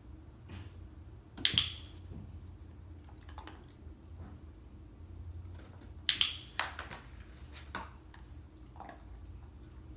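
Training clicker clicked twice, about a second and a half in and again about six seconds in, each a sharp double click of press and release, marking the dog's paws in the box; fainter clicks and rustles follow.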